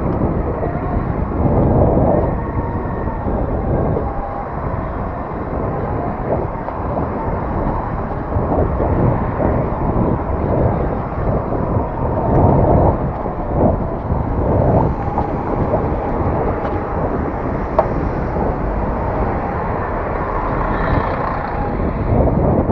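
Wind rumbling over the microphone of a camera on a moving bicycle, mixed with the steady noise of city buses and cars in traffic.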